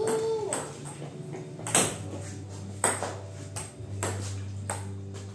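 Table tennis ball clicking off paddles and the table during a rally, about one sharp tick a second.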